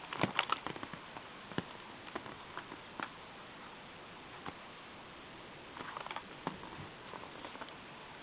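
PVC-coated oilcloth clasp purse being handled: scattered light clicks, taps and rustles, busiest in the first second and again around six seconds in.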